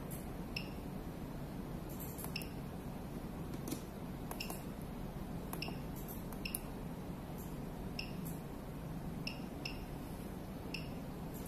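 Short high electronic beeps, about one or two a second at irregular intervals, together with sharp clicks, over a steady low hum: the key presses and key-feedback beeps of a VECG-C06G 6-channel veterinary ECG machine being set up.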